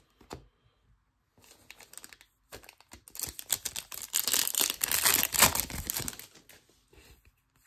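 A Topps Chrome baseball card pack's wrapper crinkling and tearing as it is ripped open and the cards are pulled out. Scattered crackles come first, then a dense stretch of crinkling through the middle.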